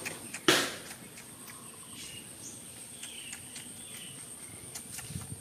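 Insects droning steadily at a high pitch, with one short loud knock or rustle about half a second in and a few faint bird chirps in the middle.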